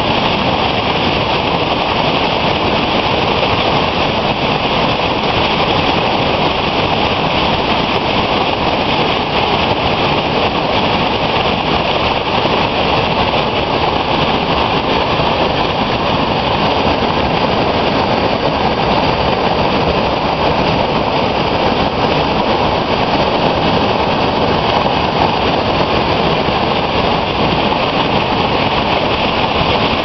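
Aira Force waterfall: a steady, loud rush of white water pouring down a rocky gorge, unchanging throughout.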